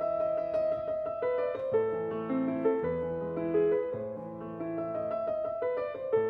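Background piano music: a gentle melody of sustained notes over a repeating bass line.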